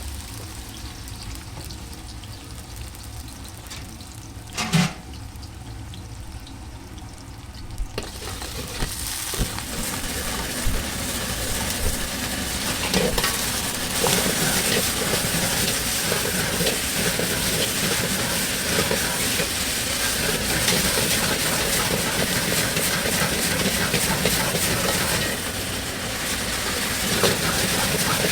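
Food frying and sizzling while being stirred, with many small clicks of the stirring through the hiss. It starts quieter, with one sharp knock about five seconds in, and grows much louder about eight seconds in.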